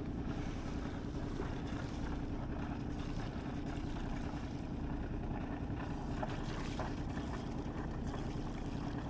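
Steady low wind rumble across the microphone aboard a small sailboat moving in light air, with faint water sounds.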